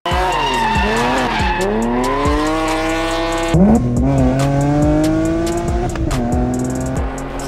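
BMW E90 328i's N52 inline-six, with catless headers and a full exhaust, being driven hard through the gears. Engine pitch dips and recovers twice in the first two seconds, then climbs steadily, falling sharply at upshifts about three and a half and six seconds in before climbing again.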